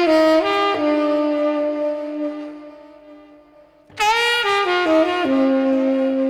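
Solo tenor saxophone playing two slow phrases: a few stepped notes settling onto a long held note that fades away, then, about four seconds in, a sharp bright attack and a few falling steps onto another long held low note.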